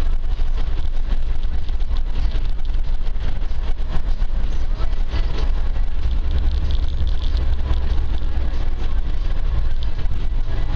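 Land Rover driving off-road: steady low engine and road rumble, with frequent small knocks from the rough track.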